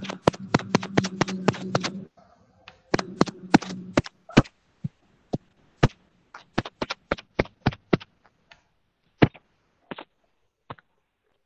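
Computer keyboard and mouse clicking: a quick run of key clicks for about two seconds, then slower, scattered single clicks.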